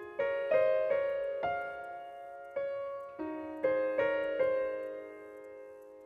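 Relaxing background music on piano: slow notes and chords struck and left to ring, dying away toward the end.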